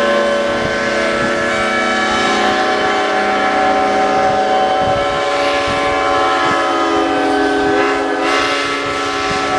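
Many steam engine whistles blowing at once for the noon whistle blow, a sustained chord of several steady pitches. A lower whistle joins about five seconds in.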